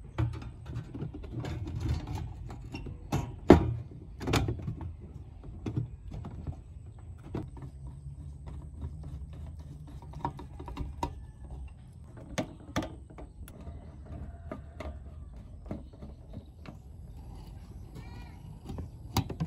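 Knocks, clicks and scrapes of a metal amplifier case being handled and screwed back together, with a hand screwdriver turning screws into the chassis. The loudest knocks come about three and a half and four seconds in.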